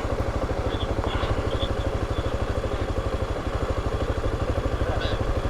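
Motorcycle engine idling with a steady, even beat.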